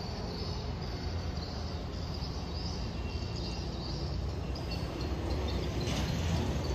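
A running engine's steady low rumble, with a faint hiss above it.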